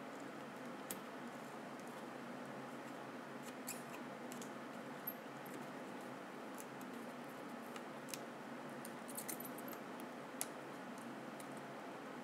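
Scattered faint, sharp clicks and scrapes of a small hand tool working against the 3DS circuit board as the old charging port is pried up, over a steady low hiss.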